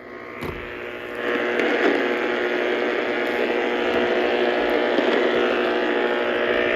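Weather radio receiver putting out steady buzzing static with a hum, no voice coming through. It swells up about a second in and then holds level.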